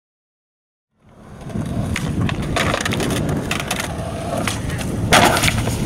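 Silence for about a second, then a skateboard rolling over concrete with a steady low rumble from its wheels. Sharp clacks of the board come several times, and the loudest, clattering hit comes a little before the end.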